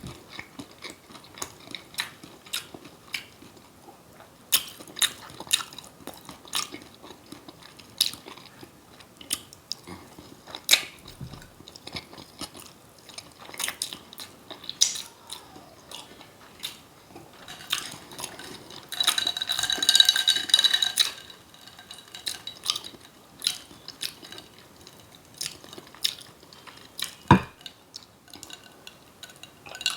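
Close-miked eating sounds: chewing and wet mouth smacks of fried onion rings and crab cake, a scatter of short clicks throughout. About twenty seconds in comes a louder stretch of about two seconds with a high, steady ring to it, and near the end a single sharp knock.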